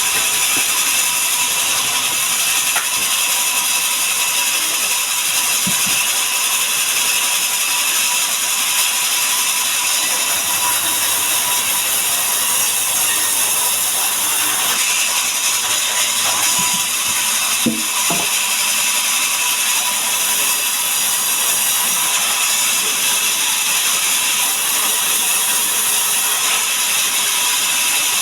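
Sawmill saw running steadily while cutting mahogany: a loud, even, high-pitched hissing noise, with a few light clicks.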